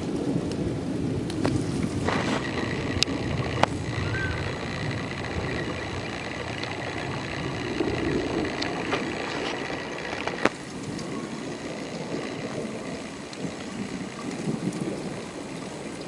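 Thunderstorm: steady rain with a low rolling rumble of thunder that swells and fades, and a few sharp taps, the loudest about ten seconds in.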